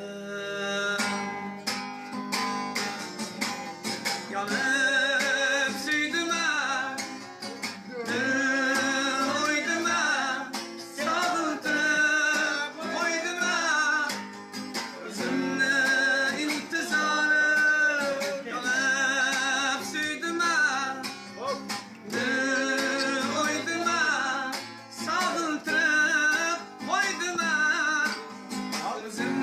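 A man singing a wavering, ornamented melody while strumming a capoed steel-string acoustic guitar.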